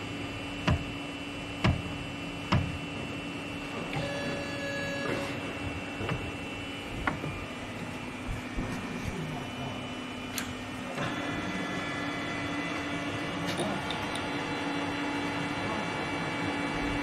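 Steady machine hum in a workshop with a few sharp metallic knocks in the first three seconds and scattered clicks after; about eleven seconds in, a second, louder hum joins.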